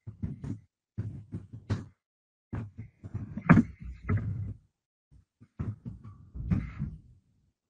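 Irregular clicks and dull knocks, a few a second in short clusters, from handling things on a desk in front of a computer microphone.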